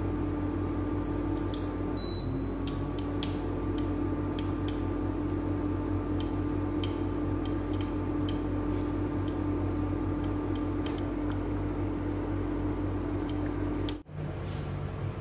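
A kitchen appliance's steady hum, with a few held tones, as a pot of broth simmers on the stove; light clicks of a metal ladle and chopsticks against the pot are scattered through it. The hum cuts off near the end.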